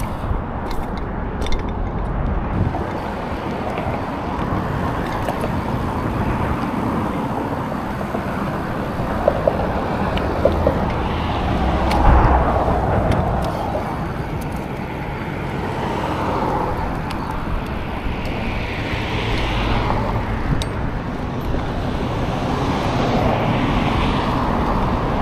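Road traffic passing close by, cars swelling up and fading away several times, the loudest about halfway through, over a steady low rumble.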